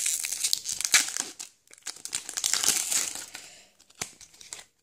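Foil wrapper of a Pokémon card booster pack crinkling as it is torn open in the hands, in two spells with a short pause between.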